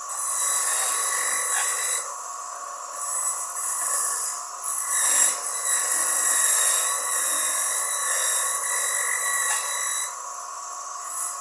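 Homemade electric coconut grater driven by a salvaged water-pump motor, running with a steady whine while coconut is pressed against the spinning grater in several bouts of rasping, scraping noise.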